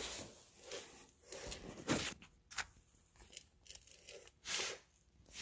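Faint, scattered rustling and scraping of handling and movement under the car: about half a dozen short, irregular scuffs with quiet gaps between them, the loudest about two seconds in.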